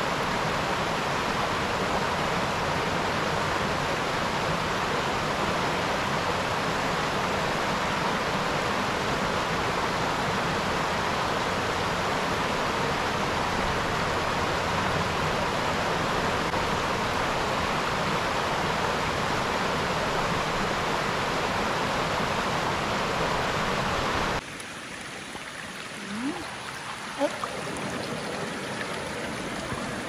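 Shallow rocky creek running steadily over stones. About 24 seconds in the sound cuts to a quieter, closer trickle of water with a few brief faint sounds over it.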